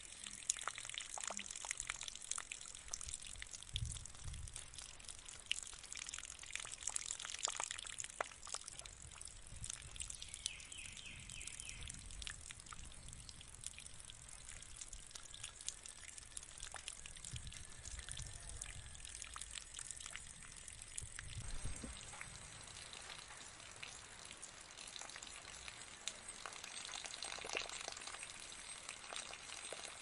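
Tabletop pot fountain running: water pouring from a tilted jug into a small bowl and trickling down into the basin, a steady light splash and patter with many small drips. A few low rumbles come and go underneath.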